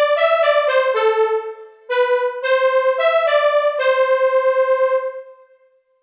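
u-he Hive 2 software synthesizer playing its 'CK Polywave 2' preset: a bright synth playing two short melodic phrases of overlapping notes with a rapid pulsing in volume. The last note fades out about five and a half seconds in.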